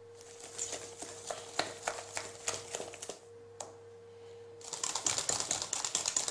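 Wire balloon whisk beating pastry cream and butter cream in a stainless steel bowl, the wires clicking against the metal. Scattered taps at first, then after a short pause, from about halfway through, fast, even whisking clicks.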